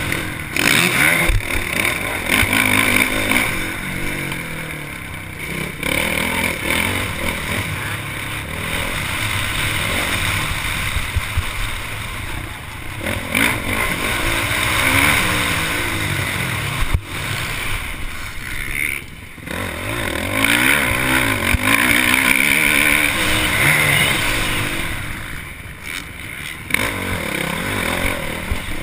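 Honda motocross bike engine heard from the rider's helmet camera under race load. It revs hard and rises in pitch, then drops off sharply several times as the rider shifts and rolls off the throttle for jumps and turns.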